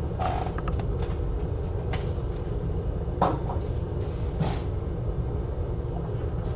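Steady low hum of running bench equipment, with a few small clicks and taps of tools being handled.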